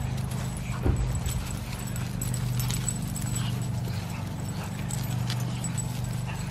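Two Yorkshire terriers on leashes moving and sniffing about in grass, with scattered small clicks and rustles over a steady low hum.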